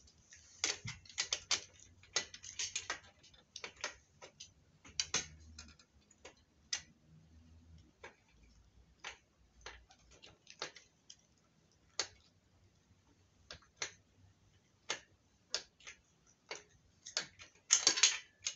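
Hand tools working bolts and metal fittings on a workbench frame: irregular sharp clicks and taps, several a second at first and sparser later. A louder rustle comes near the end.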